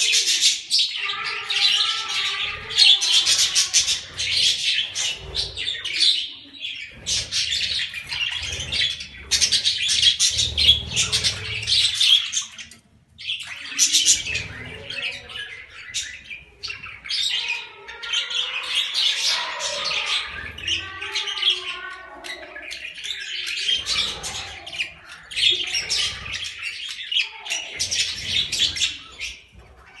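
Several budgerigars chattering and chirping in rapid, scratchy bouts, with brief lulls, the longest about halfway through.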